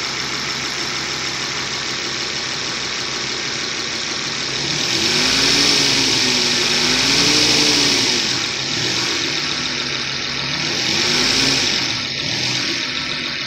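2004 Volvo S60 running on the road, with steady road and engine noise. The engine pitch rises and falls a few times about a third of the way in, and again shortly past the middle.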